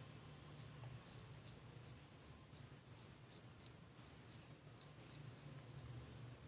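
Faint, irregular soft ticks and pats of hands pressing a mashed potato and bread mixture into cutlet shapes, over a low steady hum.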